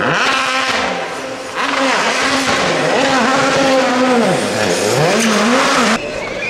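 Hyundai i20 WRC rally car's turbocharged engine revving hard, its pitch rising and falling again and again, as the car pulls out of a snowbank with its front end smashed, wheels spinning and throwing up snow. The sound cuts off abruptly near the end.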